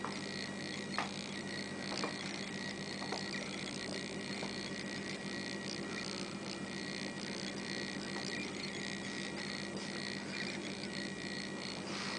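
Steady background hum and hiss, with a few faint soft clicks in the first few seconds.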